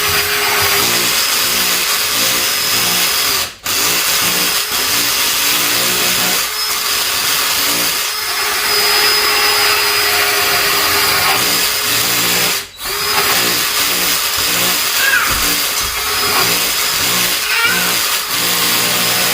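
Power drill running under load, boring through two layers of drywall, with a steady whine that stops briefly twice.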